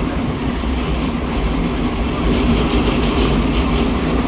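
Tram running on its rails, heard from inside the passenger car: a steady rumble of wheels on track with a low steady hum. The rail noise grows brighter about two seconds in.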